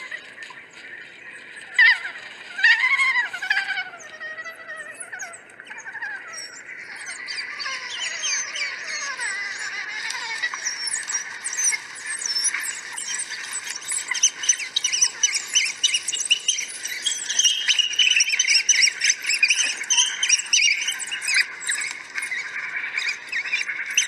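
African wild dogs twittering: high-pitched, bird-like chirps and squeals. A few longer wavering whines come about two to four seconds in, then from about six seconds on there is a dense chorus of overlapping chirps.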